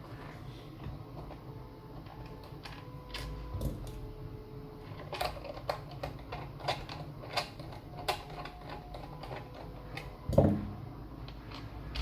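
Typing on an AlphaSmart Neo2 keyboard: irregular, unhurried key clicks. There is one heavier thump about ten seconds in.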